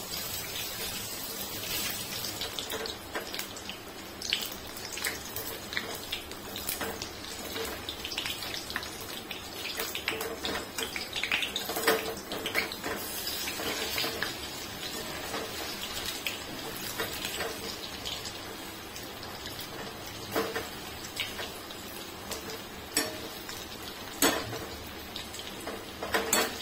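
Marinated chicken pieces deep-frying in hot oil in a steel wok, sizzling steadily, with several sharp metallic clinks of a wire spider skimmer against the pan.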